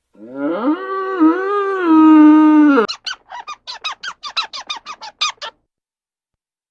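A farm animal calling: one long pitched cry that rises and is then held for a couple of seconds, followed at once by a fast run of short squeaky calls, about seven a second.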